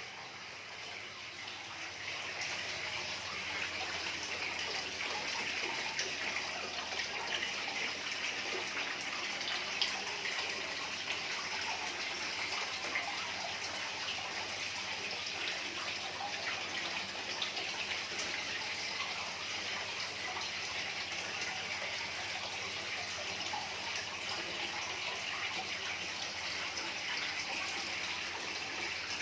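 Steady rush of running water, growing a little louder about two seconds in and then holding even.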